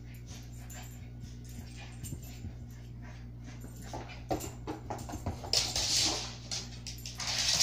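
A Shih Tzu and a Havanese play-fighting, with short grunts and yips starting about four seconds in and two louder hissing bursts near the end.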